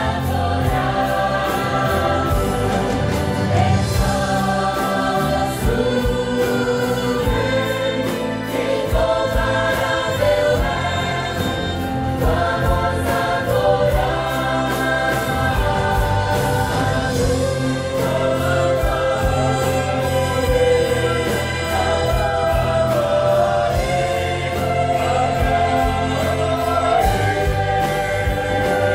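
A large choir singing with instrumental accompaniment, held notes over a steady beat.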